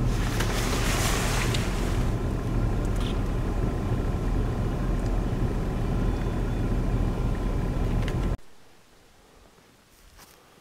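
Steady engine and road noise of a moving vehicle heard from inside the cab, cutting off abruptly about eight seconds in to a quiet background.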